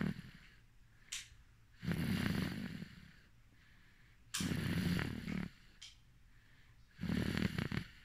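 A sleeping person snoring in a slow, even rhythm: a rasping snore about every two and a half seconds, three full snores plus the tail of one at the very start.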